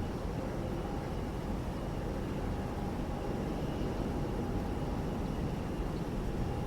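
Steady rumble of jet airliner engines with a faint, even whine.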